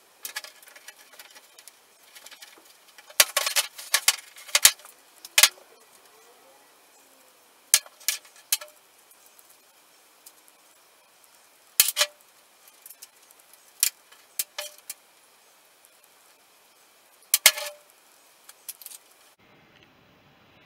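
Sharp metallic clinks and rattles of a steel socket, nuts and washers being handled as the sump plate nuts are taken off, in scattered clusters that are busiest a few seconds in and again near the end.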